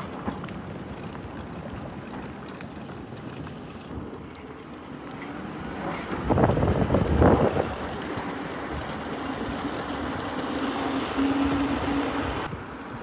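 Eahora M1P electric chopper scooter riding on pavement: low tyre and wind noise, loud as it passes close about six seconds in, then a steady electric motor whine that rises a little near the end.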